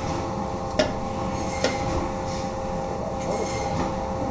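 Two sharp knocks on a wooden butcher-block table, under a second in and again about a second later, as lamb cuts are worked with a knife, over a steady mechanical room hum.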